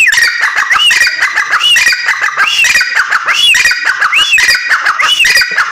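Female teetar (francolin) calling in a loud, rapid series, each phrase an arched note that rises and falls, repeated about once every second with harsh clicking notes packed in between.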